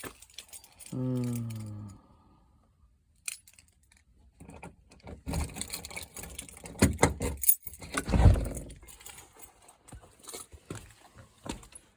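Metal clinking, rattling and knocking as scrap is handled and moved, with a heavier thump about eight seconds in. A brief low hum sounds about a second in.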